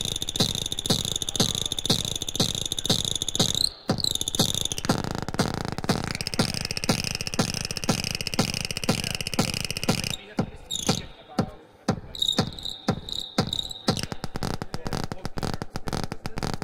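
Kick drum pulsing about three times a second through a Finegear Modmix mixer's reverb, set into feedback. A high, ringing feedback tone sits over the beat and shifts in pitch as the knobs are turned. About ten seconds in, the sound breaks up into choppy gaps.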